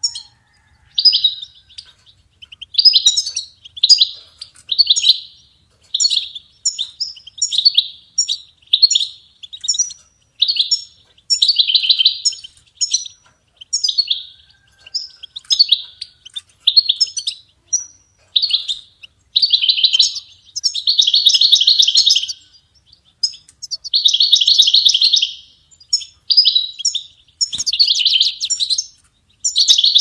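European goldfinch singing: a long, unbroken run of quick twittering notes, broken every few seconds by longer buzzy trills.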